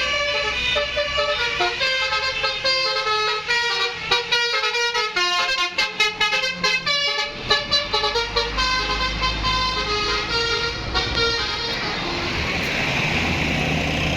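Bus telolet horn, a multi-tone air horn, playing a tune of quickly changing notes, with a fast run of short clipped notes in the middle. It stops about twelve seconds in, leaving a low engine rumble.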